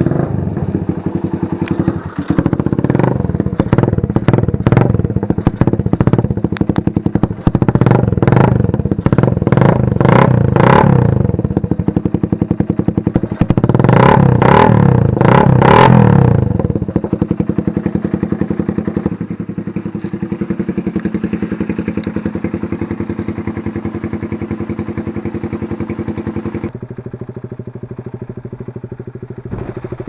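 Motorcycle engine running through an NB Bigtip aftermarket racing exhaust, revved in repeated short throttle blips, the sharpest burst of revs about halfway through, then settling to a steady idle.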